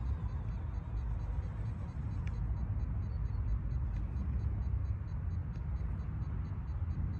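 Sound module of a 1:12 RC ZIL-131 truck playing a V8 engine at idle: a steady low rumble, with a faint quick ticking above it.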